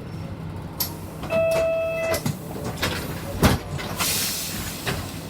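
Inside a Nishitetsu city bus over a steady engine rumble: an electronic beep held for about a second, a few knocks, one loud, then a hiss of air about four seconds in.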